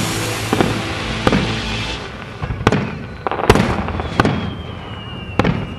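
Fireworks display: dense crackling for about the first two seconds, then a string of separate shell bursts, roughly one a second, each bang trailing off in an echo.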